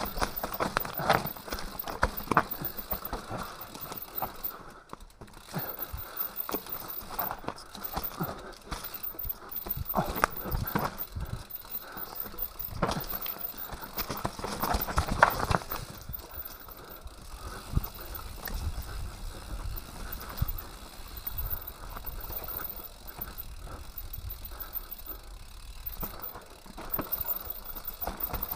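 Mountain bike rattling down a rough dirt singletrack: tyres rolling over stones and roots with a stream of knocks and rattles from the frame and components. The knocks come thickest in the first half, with sharp hits around 1–2 s, 10 s, 13 s and 15 s; after about 16 s the ride runs smoother over a steady low rumble.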